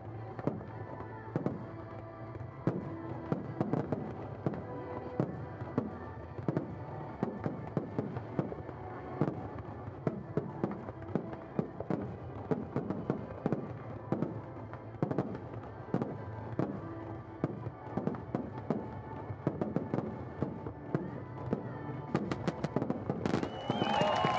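Fireworks going off in a continuous run of sharp bangs and crackles, several a second, growing denser near the end.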